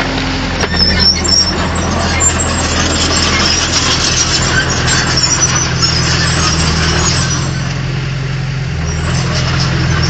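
Bulldozer's diesel engine running steadily, with high metallic squeals and a few clanks, mostly in the first half.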